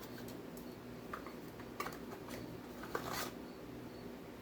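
Faint clicks and rustles of small metal engine parts being handled, over a steady low electrical hum.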